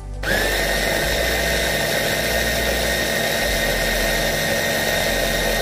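Food processor motor switched on and running steadily, blending eggs into chopped whole lemons: a steady whine over a hum, rising briefly as the motor spins up about a quarter second in.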